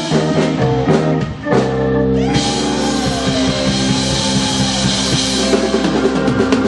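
Live rock band playing an instrumental passage on electric guitar, electric bass and drum kit. About two seconds in, a cymbal crash rings under a bent guitar note, and an even drum beat takes over near the end.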